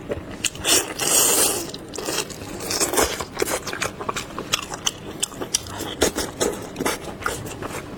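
Close-miked eating of soft braised pork and xiangmaijin strips: wet mouth clicks and smacks of chewing, with a louder, longer sucking hiss about a second in.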